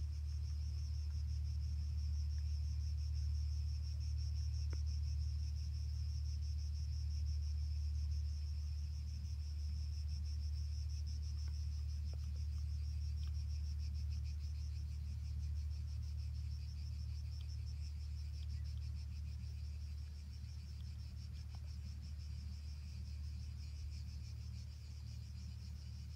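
Insects chirring steadily in grass: a continuous high, finely pulsing trill, over a steady low rumble.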